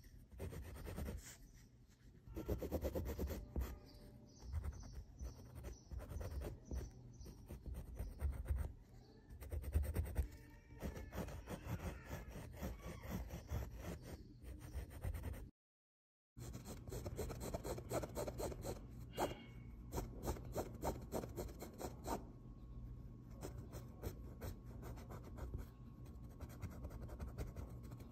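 Colored pencil scratching on cloth in quick back-and-forth shading strokes, in louder bursts. The sound drops out completely for about a second a little past the middle.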